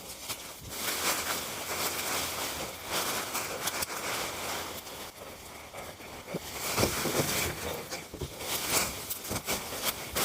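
Rustling and crackling of cut branches and leaves being handled and dragged, with a few knocks of wood about seven seconds in.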